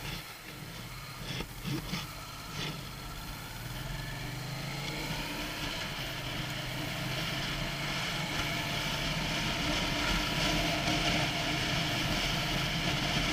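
Motorcycle engine running as the bike pulls away and picks up speed, with wind and road noise growing steadily louder. A few sharp clicks in the first few seconds.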